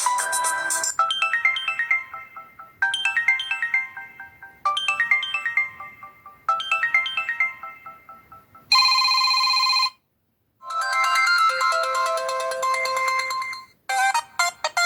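Samsung Galaxy Ace 2 ringtones playing one after another. A short electronic melody repeats four times, then a steady electronic tone lasts about a second. After a brief silence a busier tune plays, and another begins near the end.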